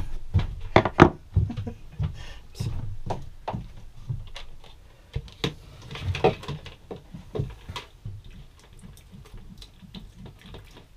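A plastic bucket being handled and set down among wooden and metal surfaces, knocking and clattering repeatedly. The loudest knocks come about a second in, with lighter bumps and clicks after.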